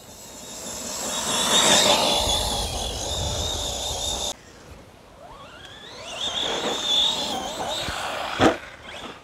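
Team Associated Rival MT10 RC monster truck's brushless motor whining at speed on a 2S battery, with tyres on grass. The whine cuts off suddenly a little over four seconds in, then rises again. A sharp thud near the end, the loudest moment, as the truck lands from a jump.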